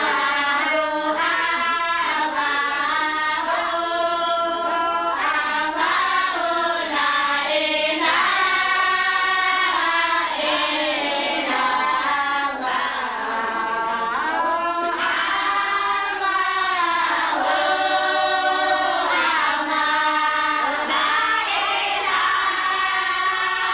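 A group of girls and young women singing together in unison, unaccompanied: a slow devotional chant with long held notes that slide from one pitch to the next.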